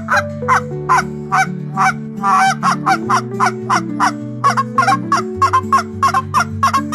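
Goose honking in a rapid series of short, loud calls, about two to three a second, over soft background music.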